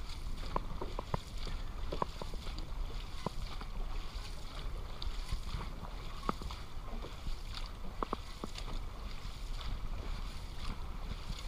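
Dragon boat crew paddling: many paddles splashing and pulling through the water, over a steady rumble of wind on the microphone, with scattered short knocks.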